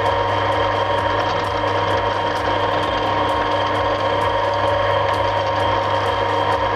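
Electric drill press running steadily with a constant motor hum while an 8 mm bit drills holes into a wooden block.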